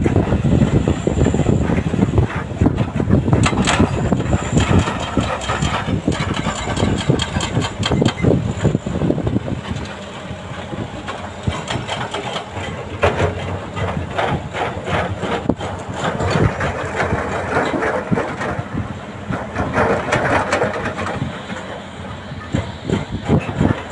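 Doosan DX340LCV excavator's diesel engine running under load while rocks clatter and thud into a dump truck's steel bed, loudest in the first ten seconds. After that the clatter drops away, leaving engine noise as the loaded dump truck moves off.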